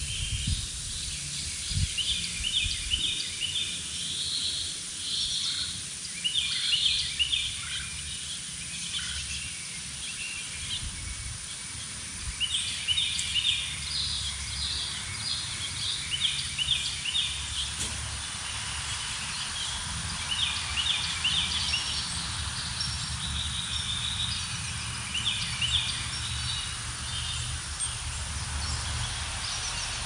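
Songbirds singing outdoors: short phrases of quick high notes repeated every second or two, over a steady low rumble.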